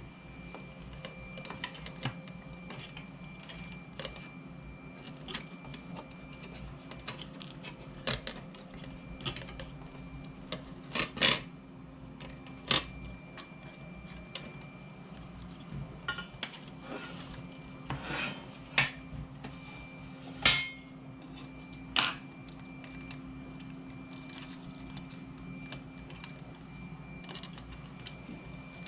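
Scattered clicks and clacks of small metal and plastic parts of an Xbox 360 disc drive being handled as its logic board is fitted, with several louder knocks in the middle and few near the end. A steady hum runs underneath.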